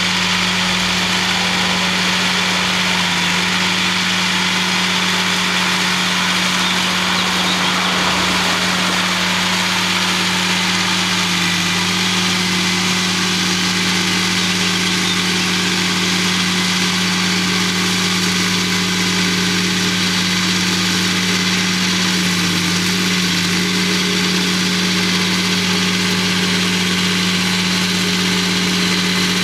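Fendt Farmer 206V tractor running at steady engine speed, driving a front-mounted flail mower through roadside grass; a steady, even hum with no change in pitch.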